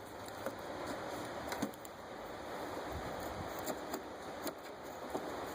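Scattered light clicks and knocks of plastic cooling-system parts being handled, over a steady background rush.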